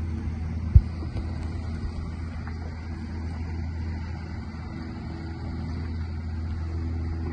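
Sea-Doo Fish Pro personal watercraft's engine idling with a steady low hum. There is a single thump just under a second in.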